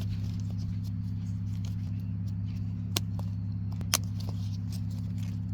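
A steady low mechanical hum runs throughout, with two sharp clicks from the shifter parts being handled about three and four seconds in; the second click is the louder.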